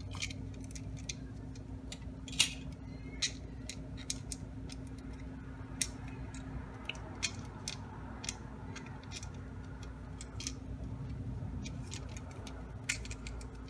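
Scattered small clicks and taps of 3D-printed plastic parts and small screws being handled and fitted together by hand, over a steady low hum.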